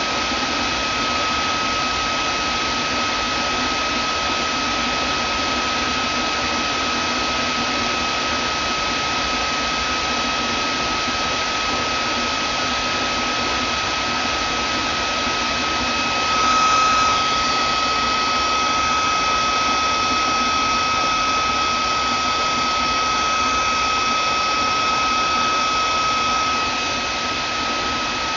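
Vacuum cleaner motor running steadily: a constant rushing hiss with a high whine. A little past halfway it swells briefly and a second, higher whine joins for about ten seconds before dropping away.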